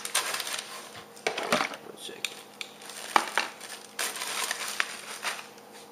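Plastic bait bags crinkling and rustling as they are handled, with a few short knocks and clicks as items are set down on the counter.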